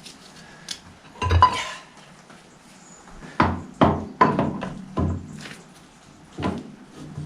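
Metal tractor parts knocking and clunking as they are worked into place: about seven separate knocks, the loudest and ringing about a second and a half in, with a quick run of four more in the middle.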